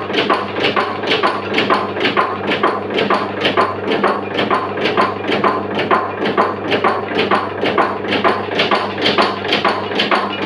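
Belt-driven camphor tablet press running: an even rhythmic clatter of about three knocks a second as the punch presses tablets, over a steady low hum.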